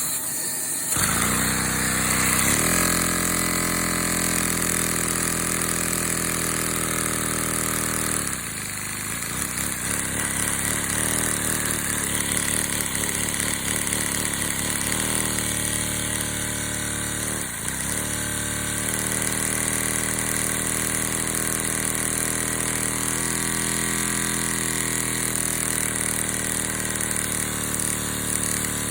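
Small LEGO vacuum engine running with an odd, uneven sound. It starts about a second in and settles to a steady pitched hum. Around a third of the way through it falters and its pitch wavers for several seconds, with a brief dip a little past the middle, before steadying again.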